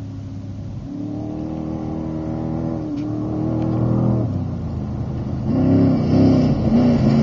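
Desert-racing Trophy Truck engine revving as the truck approaches, growing steadily louder. The pitch climbs, drops sharply about halfway through as the revs fall or it shifts gear, then climbs and wavers again near the end.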